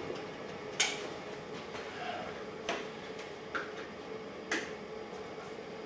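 Welding gear being handled and put on: four sharp clicks and knocks, the first the loudest, over a faint steady hum.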